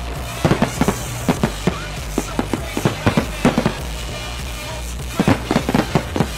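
Aerial fireworks shells bursting in rapid volleys of sharp bangs, with short lulls between the clusters.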